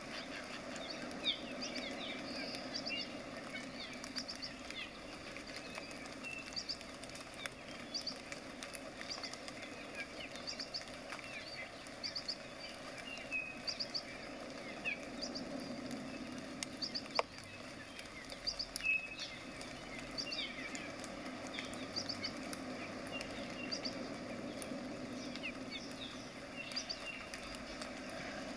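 Small birds chirping again and again over a steady low hum, with a few faint scratches and clicks of a paintbrush working acrylic paint on canvas.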